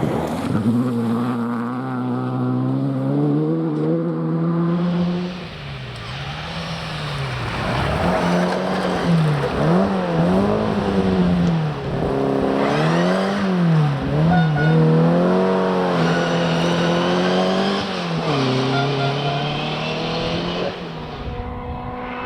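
Rally car engine working hard on a special stage: the revs climb in steps through upshifts, then rise and fall quickly several times in the middle as the car lifts, brakes and picks up again through corners, before pulling high once more and dropping away near the end.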